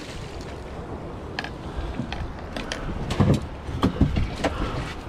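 A redfish in a landing net being hauled out of the water onto a boat: splashing, then several knocks and clatters of the net and gear against the hull, over steady wind and water noise.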